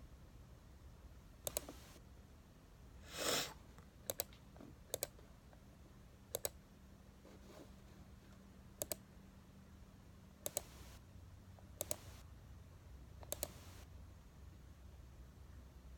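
Eight sharp double clicks, spaced one to two and a half seconds apart, with one brief, louder swish about three seconds in.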